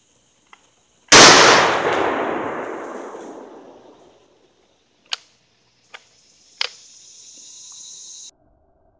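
A single blast from a homemade 12-gauge slam-fire shotgun firing a 3-inch buckshot shell, with a long echo that fades over about three seconds. A few seconds later come three short, sharp clicks as the gun is handled.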